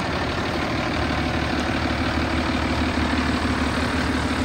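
1988 Ford F-800's 7.8-litre diesel engine idling steadily.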